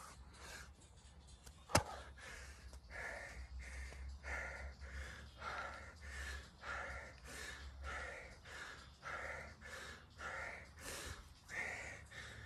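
A man panting hard and rhythmically, about two breaths a second, out of breath from sustained hard exercise. A single sharp knock about two seconds in.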